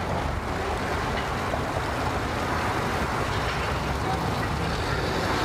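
Outboard motor on a small jon boat running steadily in gear at low speed, churning the water as it pushes the boat up onto its trailer.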